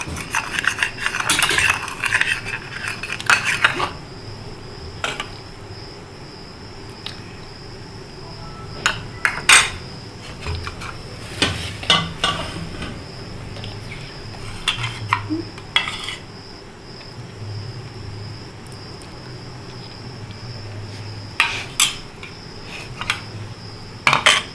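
A metal spoon scraping and clinking against a steel pot as food colour is stirred into semolina halwa. The scraping is dense for the first few seconds, then gives way to occasional single clinks.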